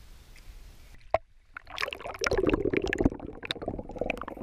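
River water heard from a camera held underwater: muffled gurgling and bubbling of the moving water, dense with small clicks and knocks. It sets in about a second and a half in, after a single sharp click.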